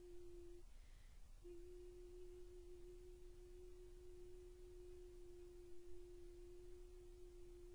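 A lone soprano voice holds a long, soft note in a very steady, almost pure tone. It breaks off for a moment under a second in, then comes back on the same pitch and holds.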